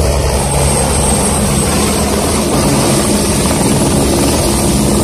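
A light single-engine helicopter running close by, hovering low over its landing pad. Its rotor beat is steady and loud, with a thin high whine above it.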